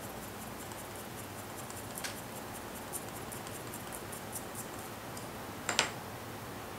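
Faint rapid ticking and rustling of a paper strip being wound tight on a slotted quilling pen, over a steady hiss. A single louder tap comes near the end.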